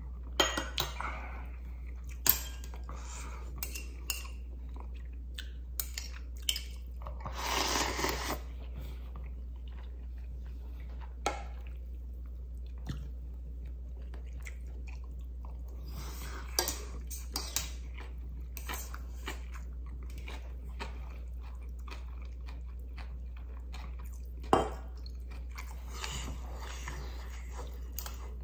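Eating sounds of instant ramyun: a metal ladle and chopsticks clinking against a stainless steel pot and bowl, loudest as sharp clinks near the start, with chewing and a longer slurp of noodles between them. A steady low hum runs underneath.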